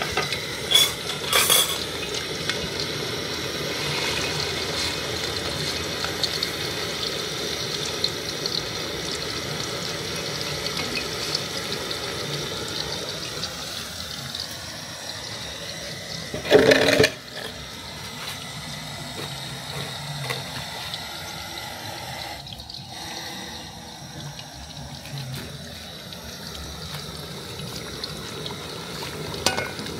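Cubes of soya cheese (tofu) deep-frying in hot groundnut oil in an aluminium pot, a steady sizzle that is fainter in the second half. A few sharp knocks of a metal slotted spatula on the pot, the loudest about 17 seconds in.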